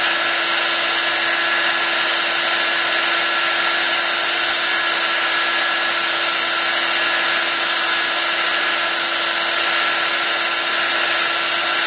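Heat gun blowing steadily, a constant fan whoosh with a steady low hum, softening the adhesive under the glass.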